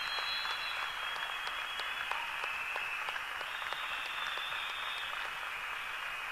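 Audience applauding steadily, a dense patter of hand claps, with a few faint high steady tones held over it for a second or two at a time.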